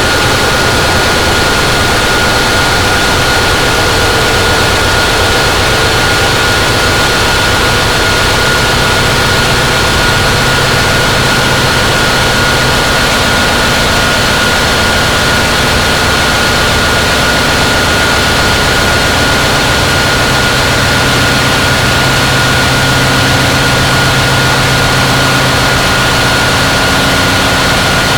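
Harsh noise drone from electronic synthesizers run through distortion pedals: a dense, unbroken wall of distorted noise with a steady high-pitched whine on top and low droning tones shifting slowly underneath.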